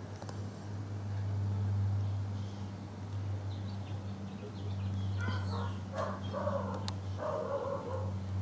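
A low steady hum, with several short animal calls starting about five seconds in.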